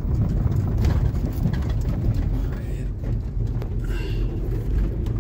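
Steady low engine and road rumble inside the cabin of a moving Nissan minivan.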